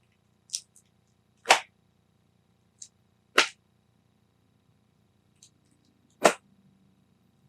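Comic books being set down one at a time on a pile: three sharp slaps, with fainter flicks of paper or plastic between them.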